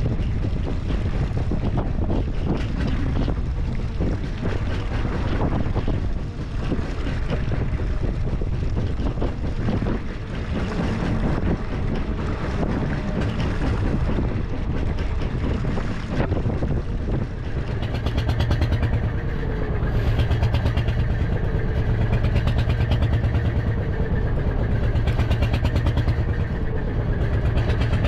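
Boat engine running with a fast, even pulse that grows louder and more rhythmic about two-thirds of the way in, with wind buffeting the microphone.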